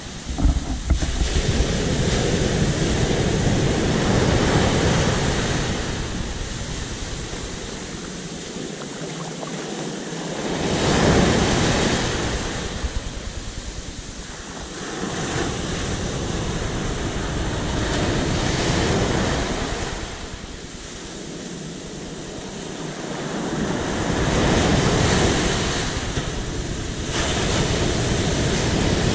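Rough, stormy sea surf: waves breaking and washing up the shore, the noise swelling and falling away about every six to eight seconds, with wind buffeting the microphone.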